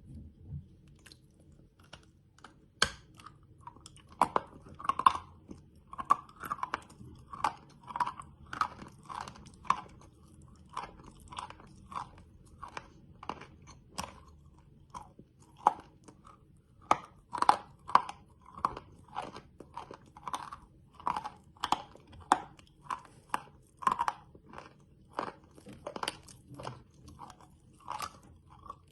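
Close-up chewing of chalk candy: a steady run of crunchy chews, about one to two a second, broken by a few sharper snapping bites.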